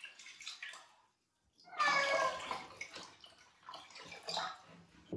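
Water poured from a plastic jug over a wet cat standing in a plastic tub, splashing and trickling into the tub in short bursts, loudest about two seconds in.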